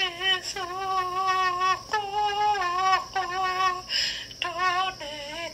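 A woman singing slow, held notes with a slight waver in pitch and short breaks between phrases, heard through a laptop's speaker from a video call.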